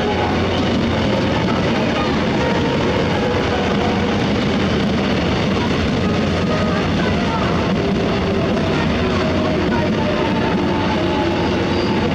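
Steady rumble of a passenger train running, with a few faint steady tones over it.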